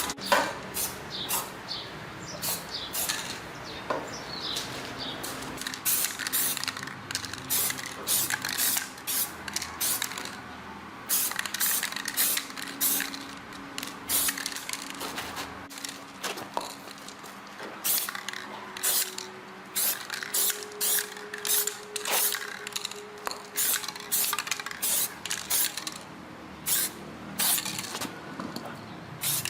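Many short, irregular hissing bursts of spray, each a fraction of a second long, over a faint steady hum.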